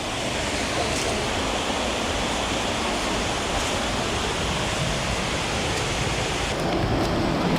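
Steady rush of river water tumbling over rocks, an even hiss with no pauses that dulls slightly about seven seconds in.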